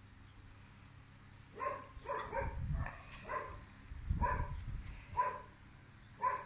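A small dog gives a run of short, high yaps, about eight in irregular clusters, starting a second and a half in. A couple of low thuds come between them.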